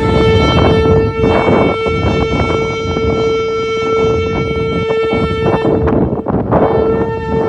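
Shofar blown in one long steady blast, breaking off for a moment about six seconds in and then sounding again.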